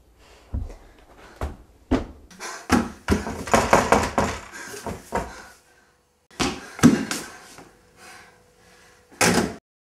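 Hurried thumps and knocks, then a front door's handle rattled and the door shaken hard for a couple of seconds. More knocks follow, and a short sharp noise cuts off near the end.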